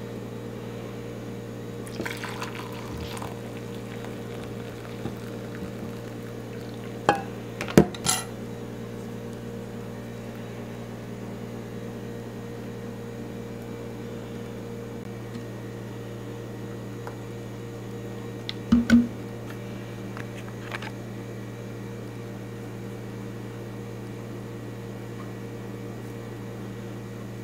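Hot water poured from a pot into a ceramic mug, with several sharp clinks and knocks of the pot and mug, the loudest around eight and nineteen seconds in, over a steady low hum.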